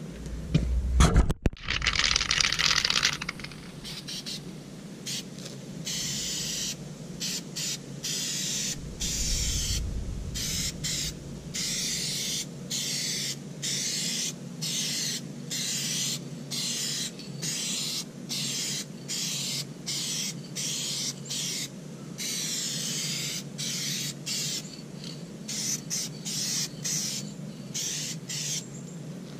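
Aerosol spray can hissing: one longer, louder spray near the start, then many short spurts about a second apart.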